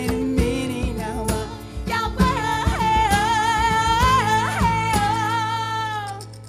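Live band with a woman singing lead: she holds a long, high, wavering note with a couple of short upward flips while the drums play underneath. The drums stop about five seconds in and the held note ends near the end, closing the song.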